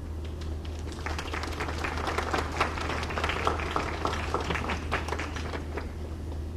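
A crowd clapping, a dense patter of hand claps that starts about a second in and dies away near the end.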